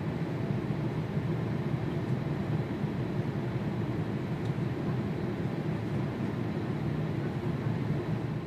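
Steady low rumble and hiss of an airliner cabin in cruise flight: engine and airflow noise.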